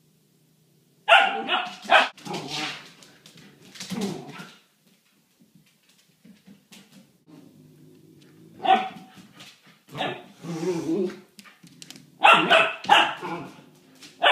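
Siberian husky–wolf mix puppy barking at a cat in short volleys, about a second in, again in the middle and near the end, with quieter low growling between the volleys.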